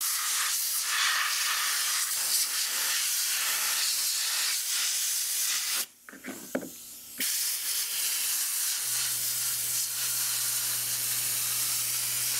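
Compressed air hissing from an air blow gun blown through a paper lawn mower air filter, in two long blasts with a short break about six seconds in. A low steady hum starts about nine seconds in.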